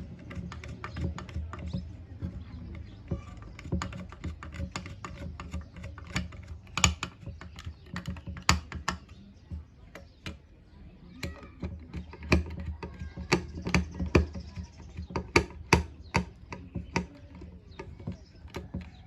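Irregular light clicks and taps of plastic and metal parts of a 7-inch LED projector headlight being handled and fitted together, over a steady low hum.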